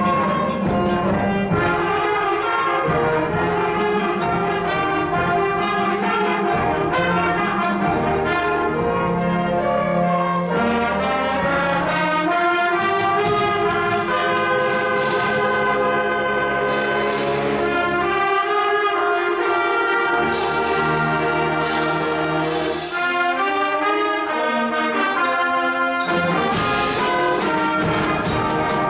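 Middle-school concert band playing sustained brass-led chords, with cymbal crashes from about halfway through.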